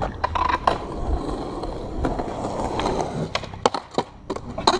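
Skateboard wheels rolling on rough concrete, then a quick run of sharp clacks from about three and a half seconds in as the board pops and strikes a log obstacle.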